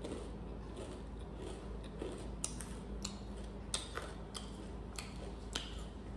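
Dry, crunchy sev and fried puri crackling as they are eaten and handled: scattered sharp crisp crunches that come more often from about two seconds in, over a steady low hum.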